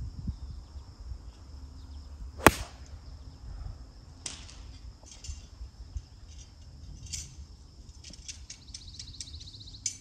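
An 8-iron striking a golf ball off the tee: one sharp crack about two and a half seconds in. A steady high-pitched tone runs behind it, with a few faint ticks and a quick high trill near the end.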